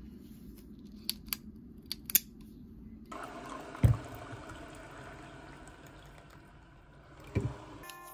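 A few sharp clicks as plastic erasable gel pens are handled. Then water is poured from a kettle into a ceramic mug, a steady splashing pour of about four and a half seconds, with a thump soon after it starts and another near the end. Music starts just as it ends.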